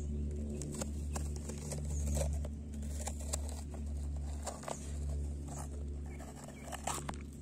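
Knife cutting through a green bell pepper: irregular crisp clicks and crackles as the blade cuts around the stem, over a steady low hum.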